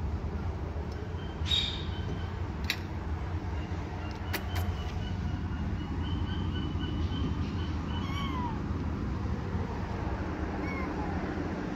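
A few sharp clicks of a spoon against a ceramic bowl in the first five seconds, then a kitten mewing faintly, short rising-and-falling calls, about three times in the second half, over a steady low rumble.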